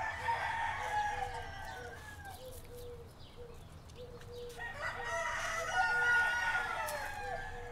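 Roosters crowing: two long crows, one at the start and a second about four and a half seconds in, with a faint short note repeating about twice a second underneath.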